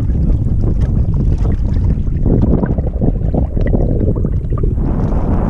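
Strong wind buffeting the microphone in a loud, steady rumble, with choppy water lapping and slapping against the small boat.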